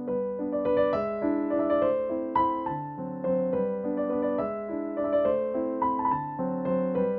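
Gentle background piano music playing a steady melody with chords.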